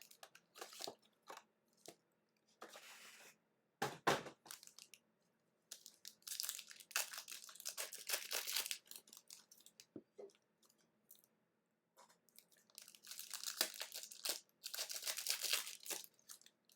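Trading-card box packaging being torn open by hand: irregular crinkling, tearing and crunching of cardboard and plastic wrap, with a sharp crack about four seconds in and two longer stretches of steady tearing.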